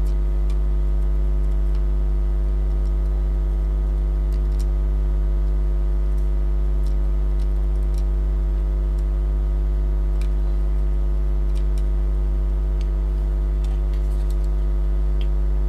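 Steady, loud electrical mains hum with a stack of overtones above it. A few faint, scattered ticks come from a metal tool picking at solder joints on a circuit board.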